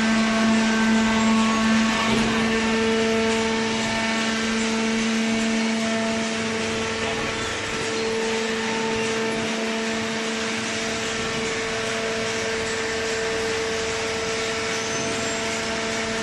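Hydraulic cardboard baler running, its motor and pump giving a steady hum, with a higher whine growing stronger a few seconds in.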